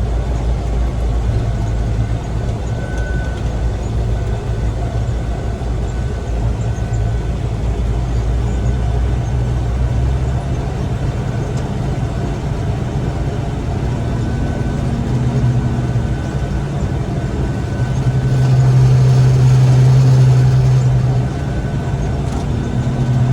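Gleaner M3 combine running steadily while it unloads grain from its hopper, a constant engine and machinery drone that grows louder for a few seconds near the end.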